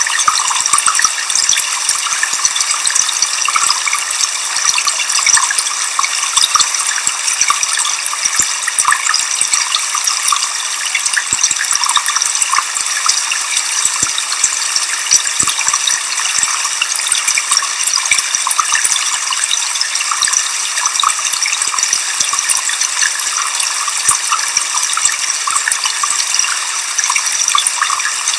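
Waterfall: a steady, unbroken rush of falling water, mostly a high hiss with little low rumble.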